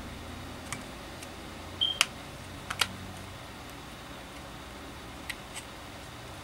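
Scattered small clicks and taps of the plastic and metal parts of a disassembled Milwaukee M12 drill being handled and fitted by hand, with a brief squeak just before the loudest click about two seconds in.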